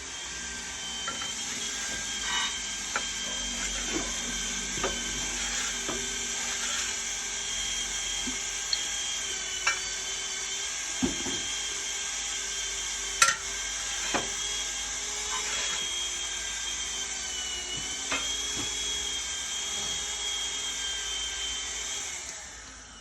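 An electric power tool running steadily with a high whine for about twenty seconds, with a few sharp knocks along the way; it stops just before the end.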